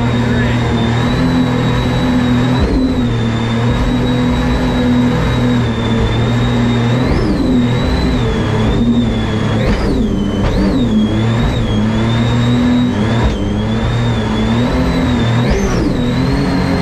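Supercharged mini jet boat engine running steadily at cruising speed, with a high whine over wind and water noise. The revs dip and come back briefly several times, around the middle and near the end.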